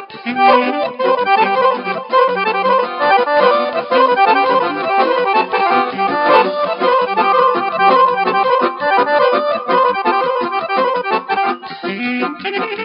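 Accordion playing a fast traditional Balkan folk tune with a live band, a quick stream of notes, fed straight from the mixing desk.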